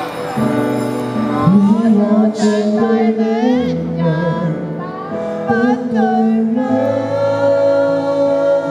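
A man singing a pop ballad live into a handheld microphone over instrumental accompaniment, his voice amplified through a sound system, with sliding, wavering sustained notes.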